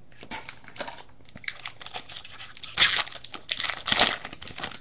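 Plastic wrapper of a baseball card pack crinkling and being torn open, in a run of irregular crackles that peak twice in the second half.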